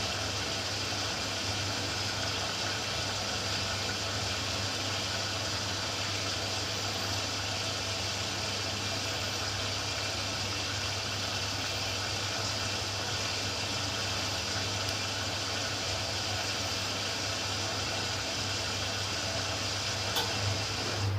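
Ariston Quadrifoglio LB476ST washing machine drawing water during its prewash: a steady hiss of incoming water over a low hum. The machine keeps taking in water because the full load soaks it up.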